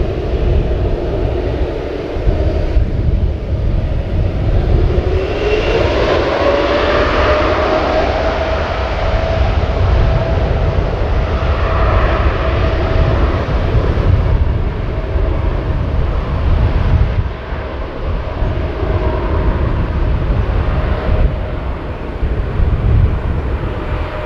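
Boeing 787-8's GEnx turbofan engines spooling up. A whine rises about five seconds in and then holds steady over a low rumble of jet noise.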